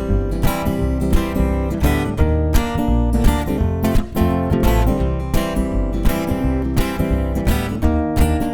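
A live band plays a song's instrumental intro, led by strummed acoustic guitar over a steady beat.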